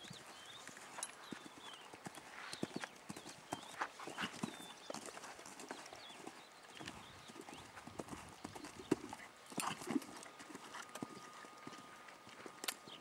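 Hoofbeats of a horse cantering on an arena's sand footing: a running series of soft thuds and strikes.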